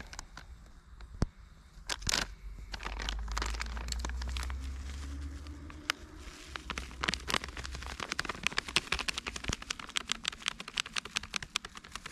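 Plastic packet of grated cheese crinkling as it is handled and shaken out over a mess tin of pasta, the rustling growing into a dense run of quick crackles in the second half. A low steady rumble sits underneath for a few seconds in the middle.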